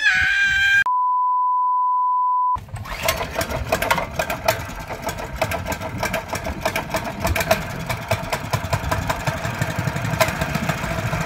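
A child yells briefly, then a steady edited-in beep tone holds for about a second and a half with the other sound cut out under it. After it the mini bike's small gas engine runs steadily at idle, its firing pulses coming fast and even.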